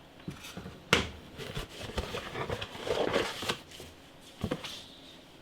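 Parts and packaging being handled: light rustling with scattered clicks and knocks, a sharp click about a second in and another near the end.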